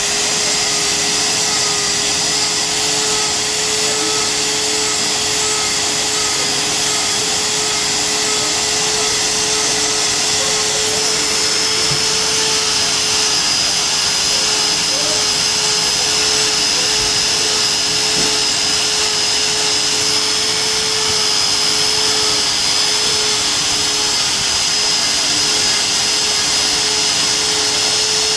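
Pinion gear teeth being ground: a grinding machine running steadily, with a constant hum and a hiss of grinding. A thin high whine joins in about eleven seconds in and holds.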